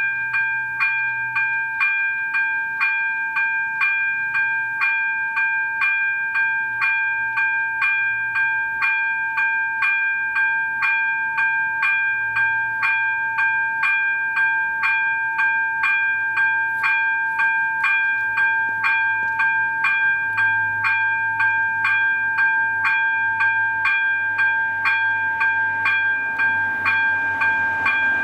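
Railroad level-crossing warning bell ringing steadily, about two strokes a second over a held ringing tone. It is sounding because the crossing has been activated for an approaching train.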